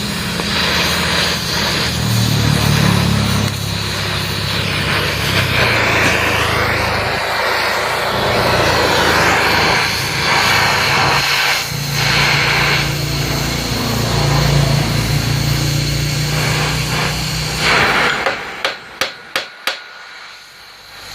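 Chainsaw engine running and cutting wood, its pitch rising and falling as it is throttled. It stops near the end, followed by several sharp taps.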